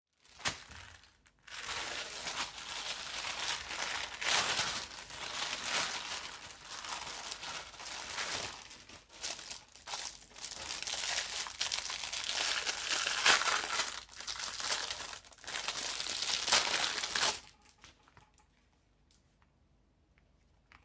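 Parcel packaging being handled, crinkled and torn open by hand: continuous crinkling with a few short pauses, stopping about three-quarters of the way through, after which only a few faint ticks remain.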